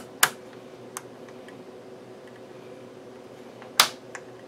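Detented rotary phase-range switch on an HP 8405A vector voltmeter clicking as it is turned: two sharp clicks near the start, a fainter one about a second in, then a loud click near the end followed by a softer one.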